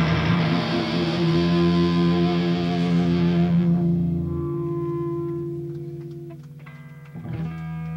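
Live rock band playing distorted electric guitars, bass and drums, ending on a final chord that rings out. The full sound cuts back about three and a half seconds in and the held notes fade. Near the end a guitar sounds a few single notes.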